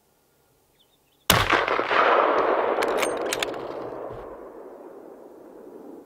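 A single rifle shot about a second in, its report echoing and slowly fading over several seconds. A few sharp clicks follow about two seconds after the shot.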